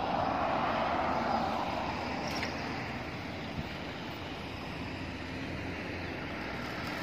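Road traffic passing at a junction, a small bus among it: a steady engine and tyre rush that swells in the first second or two, then eases off.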